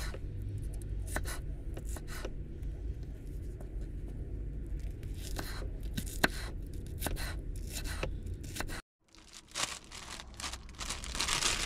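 Kitchen knife slicing and chopping an onion on a wooden chopping board: irregular taps of the blade against the board, sometimes a second or more apart. After a brief break near the end, a plastic bag of shredded lettuce crinkles as it is opened.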